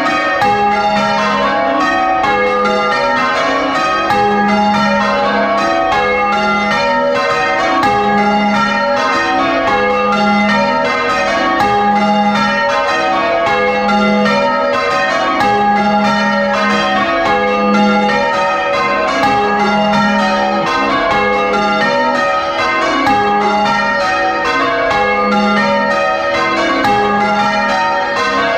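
Ring of six church bells, tenor 9 cwt in A♭, being rung full circle in changes, heard close up in the bell chamber. A steady, unbroken stream of bell strikes runs throughout, with a low hum note swelling about every two seconds.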